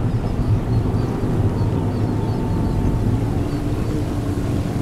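Steady low drone of a car ferry's engines underway, with water washing along the hull.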